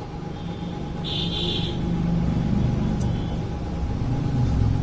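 Hot-air rework blower running at an airflow setting of about 3, a steady low rumble of its fan and air. A short electronic beep sounds about a second in.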